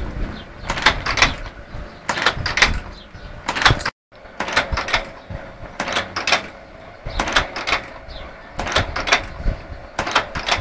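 C-hook wire-forming machine running, its cam-driven slides and forming tools clattering with sharp metallic clacks, often in pairs, a few a second, over a low rumble. The sound cuts out briefly about four seconds in.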